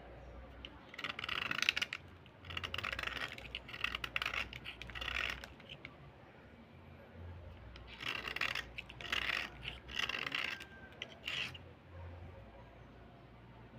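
Slate pencil being scraped with a metal blade in a series of short scraping strokes. One run of strokes comes in the first half, then a pause of about two seconds, then a second run.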